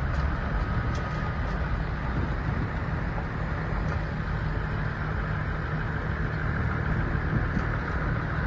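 Steady engine and road noise of a vehicle driving along, heard from inside its cab.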